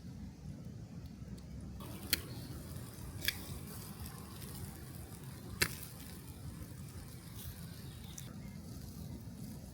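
Three sharp clicks or knocks, the third the loudest, over a steady low rumble.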